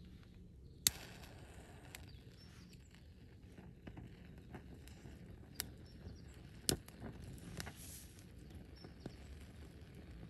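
Several sharp, separate cracks or snaps, the loudest about a second in and another a little before seven seconds, over a low steady rumble.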